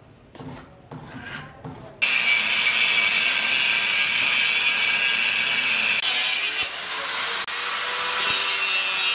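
Angle grinder cutting metal: a loud, steady grinding that starts suddenly about two seconds in. Its whine rises in pitch partway through, and the sound dips briefly once.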